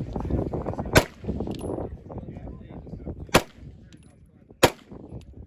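Three separate gunshots fired singly: the first about a second in, the second a little over two seconds later, the third just over a second after that. Each is a sharp report with a short echo.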